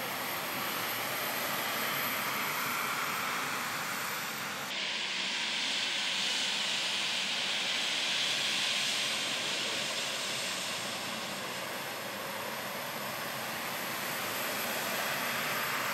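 Jet airliner engines running at low taxi power: a steady rushing hiss with a faint high whine. The sound changes abruptly about five seconds in.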